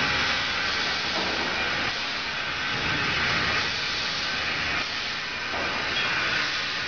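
Steady hissing factory noise from ketchup cooking kettles and their motor-driven stirrers running.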